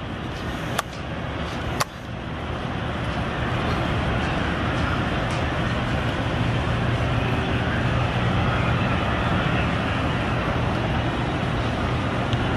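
Steady vehicle engine and road noise with a low hum, growing louder about two seconds in and then holding steady. Two sharp clicks come in the first two seconds.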